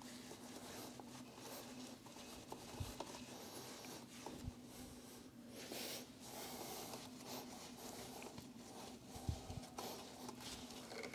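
Faint rubbing and scratching of a cloth wiping leftover oil off a motorcycle drive chain, with a few soft low knocks.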